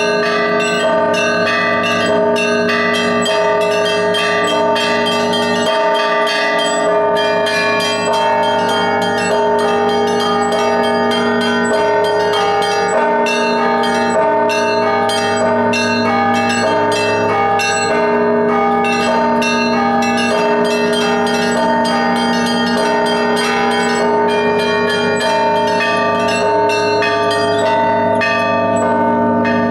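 Russian Orthodox church bells in an Easter peal played by a single ringer: small bells strike in a rapid, unbroken pattern over the held, overlapping tones of larger bells.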